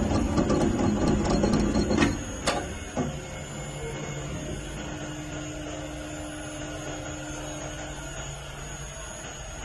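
Motor winding machine running with a fast, dense whir, stopping about two seconds in with three sharp clicks, then only a low steady hum.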